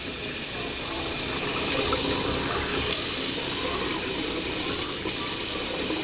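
Kitchen faucet running, its stream of tap water filling a jar and splashing into a stainless-steel sink. The rush grows louder over the first couple of seconds, then holds steady.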